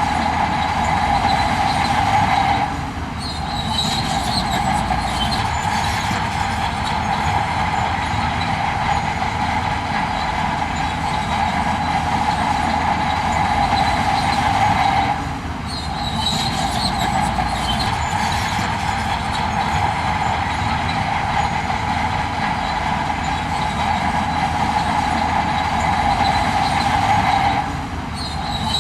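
Heavy earthmoving machinery running steadily under load, its engine and moving metal parts making a continuous loud mechanical noise that briefly drops about three seconds in, again about midway, and near the end.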